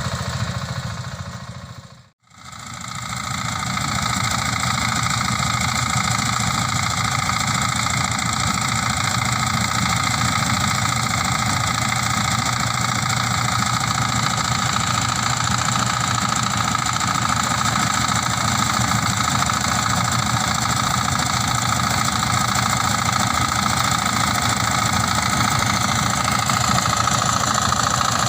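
Mini rice combine harvester's engine running steadily under load, with a steady whine. The sound cuts out briefly about two seconds in, then fades back up to the same steady run.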